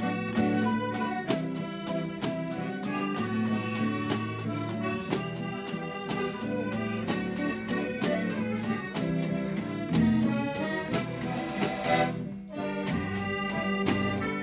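Accordion playing a lively tune over a strummed guitar, with a brief break about twelve seconds in.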